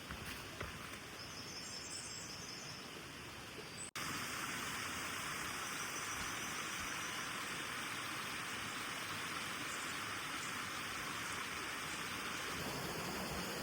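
Mountain stream water rushing steadily, with a few short bird chirps above it; about four seconds in the sound cuts to a louder, fuller rush of water.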